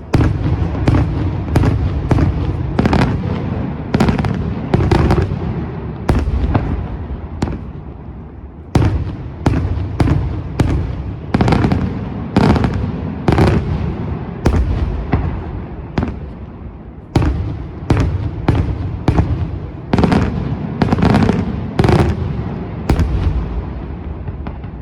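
Daytime fireworks display: a dense run of sharp bangs, about two a second, each trailing off in an echoing rumble that fills the gaps, with a brief lull about seven seconds in.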